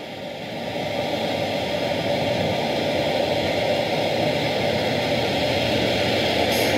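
Steady engine-like running noise from a sound-fitted model train, swelling over the first second or so and then holding level.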